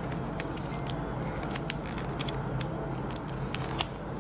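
Scissors snipping excess clear tape off a taped paper craft: an irregular run of short, crisp clicks over a faint steady hum.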